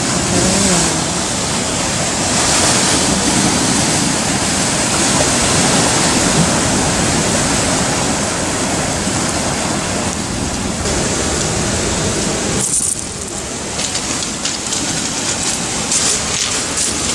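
Sea surf washing on the shore, a steady noisy wash with no pitch, dipping briefly and changing texture about 13 seconds in.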